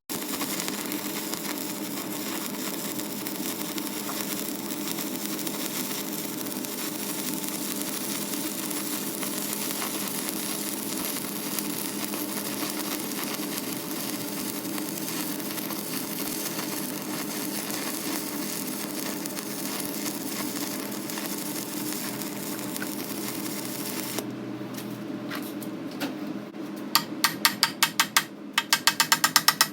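Stick-welding arc burning steadily on a 7018 electrode, a continuous crackling sizzle that stops about 24 seconds in. Near the end comes a rapid run of sharp taps, several a second.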